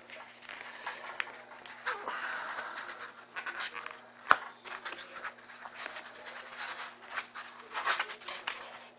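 Hands working open a small cardboard box of hockey trading cards: scraping and rubbing of cardboard with scattered light clicks and taps, one sharp click about four seconds in, as the cards are worked loose from the box.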